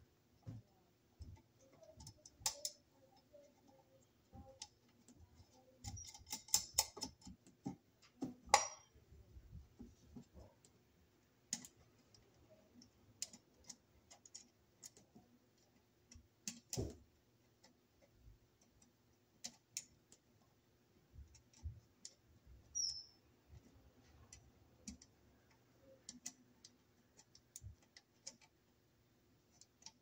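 Scattered small metallic clicks and taps of nuts being threaded by hand onto the mounting studs of a fire-alarm bell box. A quick run of clicks comes about six to nine seconds in, ending in the sharpest click, and another sharp knock comes a little past halfway.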